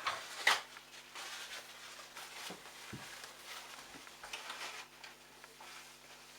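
Handling noise from a washing machine's plastic drain pump filter cap being unscrewed and worked loose by hand: a sharp knock about half a second in, then scattered soft scrapes and rattles.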